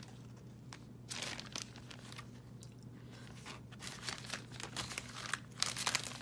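Hands rummaging through and handling scraps of lace and fabric: rustling and crinkling in irregular bursts, loudest near the end.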